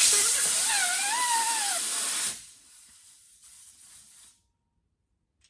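Compressed air hissing loudly out of a coreless tire valve stem as the valve core is threaded back in, with a brief wavering whistle over it. The hiss drops sharply about two seconds in as the core seats, then trails off faintly and stops.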